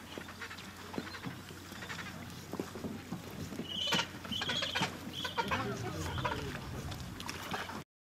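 Gentoo penguins calling: a few short, high-pitched calls from about four seconds in, over crackly colony noise. The sound cuts off suddenly near the end.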